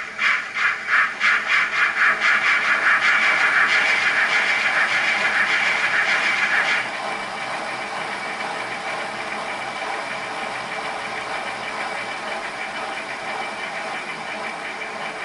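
Steam-exhaust sound of a GWR 57xx pannier tank, played by a LokSound V4 sound decoder in an O gauge model. The chuffs quicken until they blend into a rapid, loud beat, then about seven seconds in drop suddenly to a quieter, steady beat.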